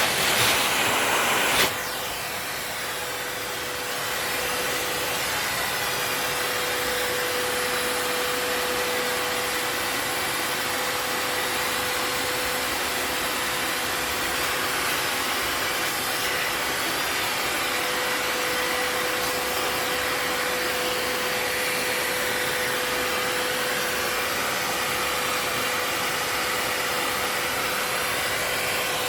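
Vacuum cleaner running steadily: rushing air with a constant motor whine. It is louder for the first second and a half, then settles to an even level.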